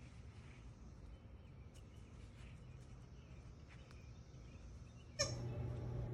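Faint outdoor background noise with a few small ticks. About five seconds in, a sharp click cuts in and a steady low hum follows, louder than before.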